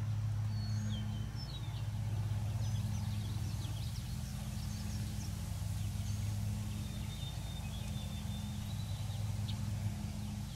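Outdoor ambience: a steady low hum, like a running motor, under short high bird chirps and whistles that come and go.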